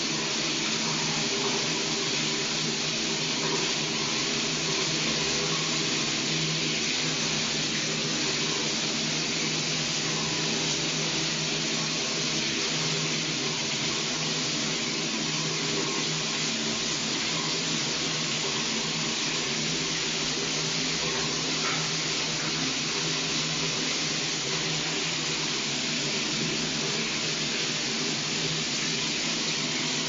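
Shower running: water spraying in a steady, even hiss, with a low steady hum beneath it.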